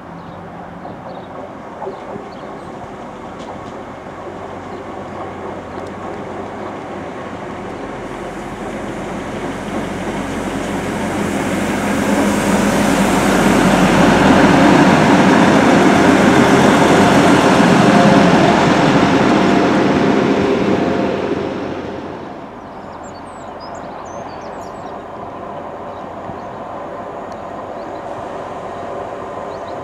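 Transport for Wales Class 175 Coradia diesel multiple unit arriving along the platform: its diesel engines and wheels on the rails grow louder, peak as it passes close, then drop off suddenly about two-thirds of the way in. After that a Class 150 Sprinter diesel unit runs more quietly, further off.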